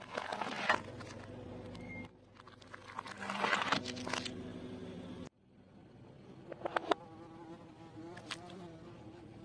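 Close-miked eating sounds: crunching and chewing of crunchy fried food in two crackly bursts, then quieter scattered clicks of chewing after an abrupt drop about five seconds in.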